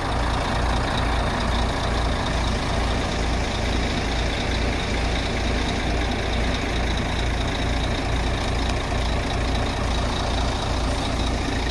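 Heavy recovery tow truck's diesel engine running steadily close by, with a deep, even pulse under a constant roar.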